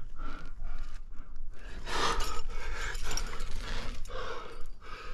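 A rock climber breathing hard, a run of loud breathy exhalations about once a second.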